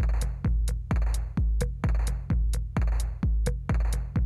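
Background electronic music with a steady drum-machine beat: a deep kick about twice a second under sharp, crisp hits.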